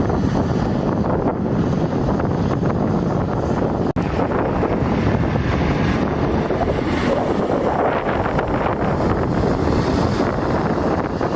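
Wind buffeting the microphone with a loud, steady rumble, broken by a brief dropout about four seconds in.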